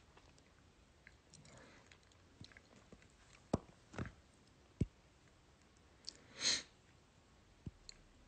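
A few small sharp clicks against quiet room tone, three of them between about three and a half and five seconds in, then a short hiss about six and a half seconds in and two faint ticks near the end.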